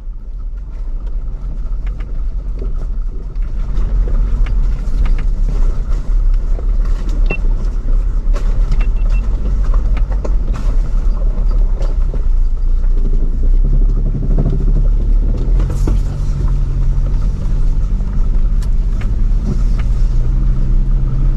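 Ford Bronco driving slowly over a rocky off-road trail: the engine runs under a heavy low rumble, with frequent knocks and rattles from tyres and body on rough ground. It gets louder about four seconds in.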